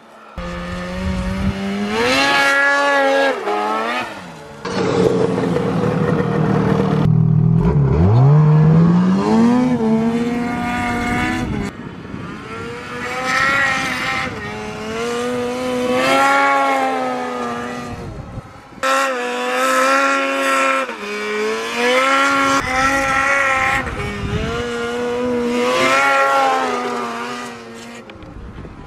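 Ski-Doo MXZ XRS two-stroke snowmobile engine revving as it rides across open snow, its pitch rising and falling again and again as the throttle is worked.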